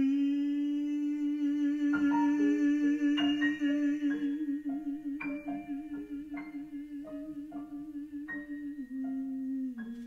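A male jazz singer holds one long note with a slight vibrato, slowly fading, and slides a little lower near the end. From about two seconds in, a piano plays single notes one after another above the held note.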